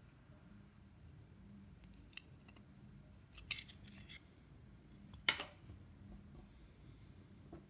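A few short, sharp clicks and taps from hands working on a small part and tools, the loudest about five seconds in, over a faint steady room hum.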